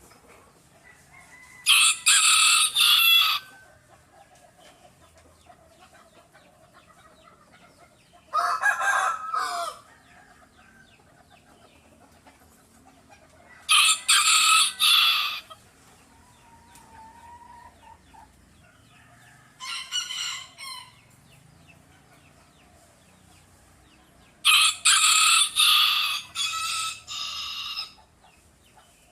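Roosters crowing: five crows about five seconds apart, the second lower-pitched, the fourth fainter, and the last the longest.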